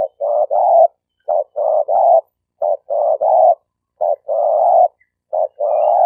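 Spotted dove cooing in the stuttering 'gagap' style used as a lure call: phrases of a short note followed by two longer coos, repeated about every second and a half. The last two phrases have only two notes.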